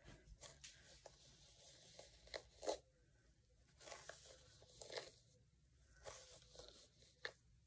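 Denman brush bristles dragged through gel-coated curly hair, a series of faint crackly strokes about a second apart, the loudest about two and a half seconds in.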